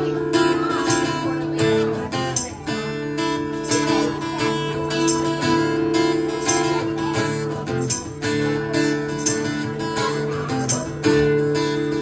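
Live acoustic guitar strummed in a steady rhythm, with a tambourine shaken in time.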